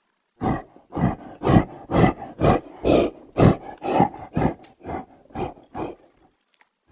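Gorilla vocalising: a run of about a dozen short calls, about two a second, growing fainter toward the end.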